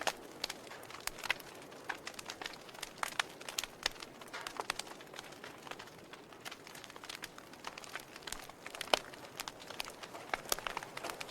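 Wood fire burning in a fireplace, crackling with irregular sharp pops and snaps over a soft hiss. The loudest snap comes about nine seconds in.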